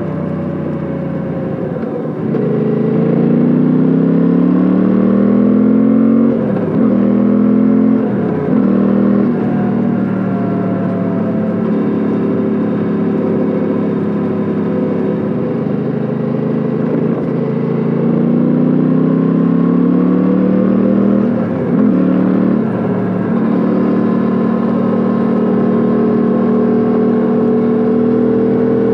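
Suzuki V-Strom 800DE's 776 cc parallel-twin engine and exhaust under way. It eases off at first, then pulls up through the gears with shifts about six and nine seconds in. It cruises steadily, then accelerates again with further shifts around twenty-two seconds and settles to a steady cruise.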